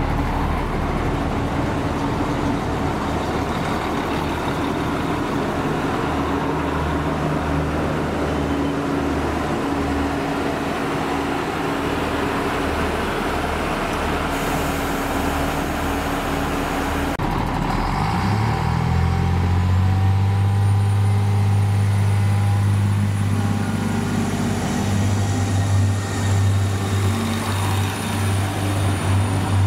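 Irish Rail Class 29000 diesel multiple unit's underfloor diesel engines idling at the platform; a short hiss of air sounds about fourteen seconds in. About eighteen seconds in, the engines rev up with a rising pitch and settle into a louder steady run as the train pulls away.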